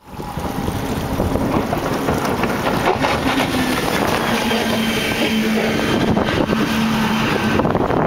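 Motorboat running at speed over choppy water, a steady engine hum under heavy wind on the microphone and rushing water.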